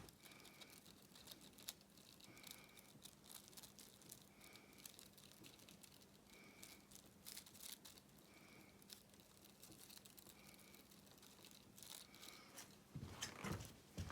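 Quiet handling noises: faint crinkling, light taps and rubbing as rubber-solution glue is spread on an inner tube and its patch, over a low steady hum. A faint short tone repeats about every two seconds, and a louder rustle comes near the end.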